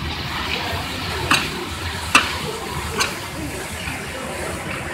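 Popcorn caramel-coating kettle with its paddle stirring a batch of mushroom popcorn: a steady rustling hiss, with three sharp knocks a little under a second apart in the middle, the second the loudest.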